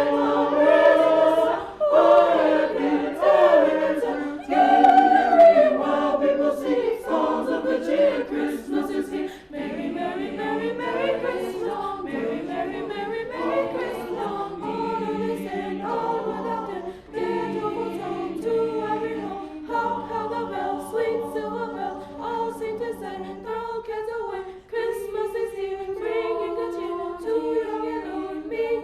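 A choir singing a Christmas song, with long held notes at first and shorter, repeated notes in the second half.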